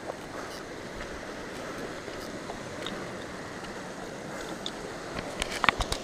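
Steady rushing outdoor noise, with a quick cluster of sharp clicks and knocks about five and a half seconds in from a mountain bike being carried on foot over rocks.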